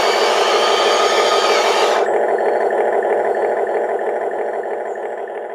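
Electric motors and gears of a Huina RC model excavator whirring steadily. The higher part of the sound drops away about two seconds in, and the whirr then fades out over the last few seconds.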